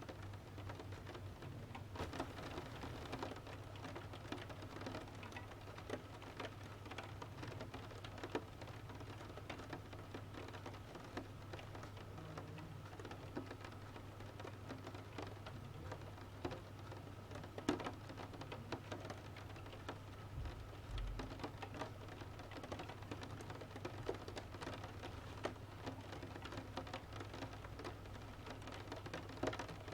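Steady rain pattering on a window, mixed with the scattered crackle and pops of a wood fire, over a low steady hum.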